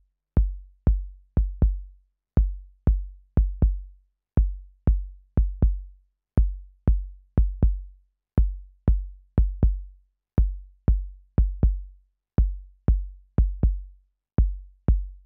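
Electronic kick drum in the style of the Roland TR-808 playing a syncopated loop that repeats every two seconds, each hit a short click followed by a deep decaying boom. It runs through the Klanghelm DC1A compressor, which lowers its level and reshapes the transient on the attack.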